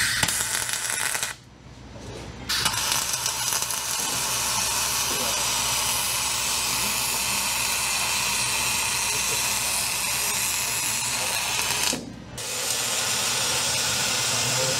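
MIG welding arc running as a steady crackling hiss, in three runs: a short burst of about a second, a long bead lasting about nine seconds, and another starting about twelve seconds in.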